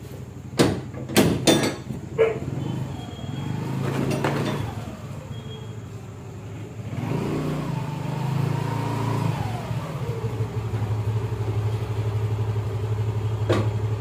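A few sharp clanks in the first couple of seconds, then a motor scooter's small engine pulls in; its pitch rises and falls briefly about eight seconds in, and it then settles to a steady idle.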